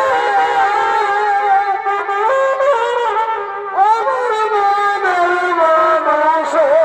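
Shehnai-style double-reed wind instrument playing a loud melody of held notes joined by pitch slides. About four seconds in a new phrase begins with a rising bend, and near the end a note wavers.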